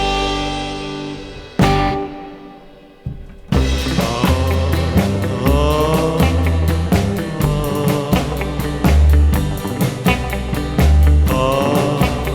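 Background music: a held chord fades away, then a rock-style band with a steady drum beat and bass comes in about three and a half seconds in.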